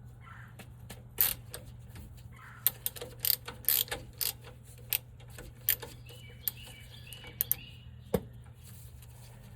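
A 3/8-inch-drive ratchet working the fill plug on the side of a GM 10-bolt rear differential: about ten irregular sharp metal clicks and knocks, over a steady low hum.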